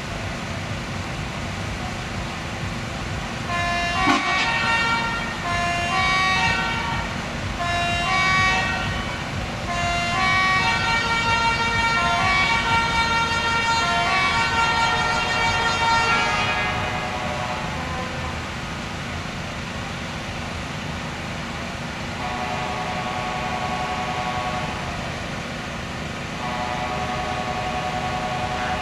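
A tune played in held, horn-like notes that step up and down in pitch, pausing twice, over a steady low rumble.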